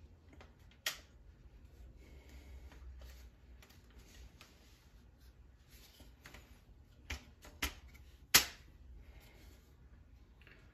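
A few sharp clicks and knocks of objects being handled on a workbench, four distinct ones with the loudest about eight seconds in, amid light rustling over a low steady hum.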